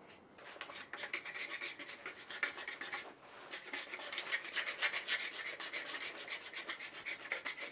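A hand blade scraping bark and wood from a freshly cut, still-green walking stick in quick repeated strokes, with a short pause about three seconds in.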